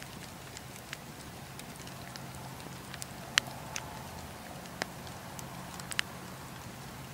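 Wood campfire burning, with scattered sharp crackles and pops over a steady low hum. The loudest pop comes about three and a half seconds in, and two more follow near five and six seconds.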